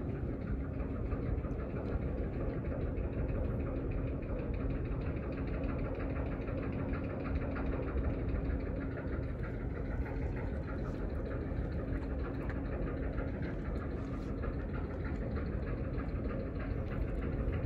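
Engine running steadily at idle: a low, even rumble with a constant hum through it.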